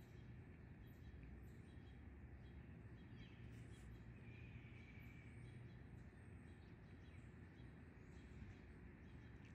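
Faint backyard ambience, near silence: scattered faint bird chirps over a low, steady background rumble.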